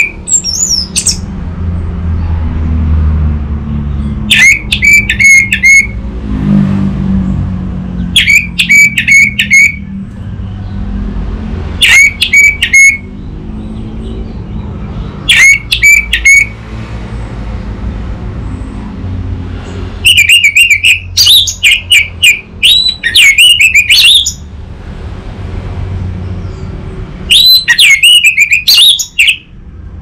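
Orange-headed thrush singing loud, short phrases of rapid high notes every few seconds, with longer, more varied phrases in the second half. A low steady rumble runs underneath.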